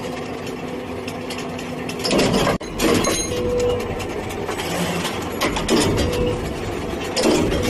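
CNC busbar cutting and punching machine with a hydraulic press running: a steady hum, then from about two seconds in a series of loud mechanical clattering bursts as it works.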